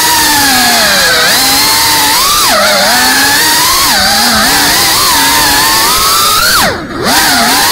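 FPV quadcopter's brushless motors whining loudly, the pitch rising and falling as the throttle changes. Near the end the throttle is chopped for a moment: the whine falls steeply and drops in level, then spools straight back up.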